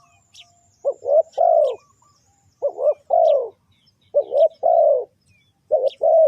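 Spotted dove cooing: a three-note phrase, two short notes and a longer falling one, repeated four times about every one and a half seconds, the last cut off at the end. Faint chirps of small birds sound above it.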